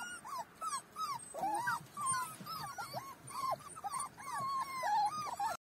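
Young puppies whimpering and whining: a quick run of short, high, squeaky cries, several at once, that cuts off suddenly near the end.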